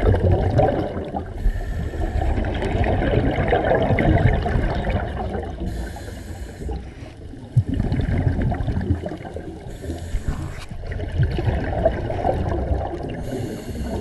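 Underwater scuba breathing through a regulator: exhaled bubbles rumbling and gurgling, with a short hiss about every four seconds.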